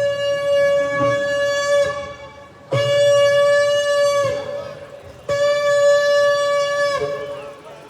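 Shofar (ram's horn) blown in long, steady blasts. One blast is already sounding and stops about two seconds in, then two more follow, each held about a second and a half and ending with a short drop in pitch.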